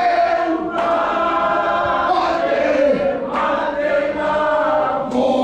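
A group of voices singing together in chorus, holding long notes in phrases with short breaks between them.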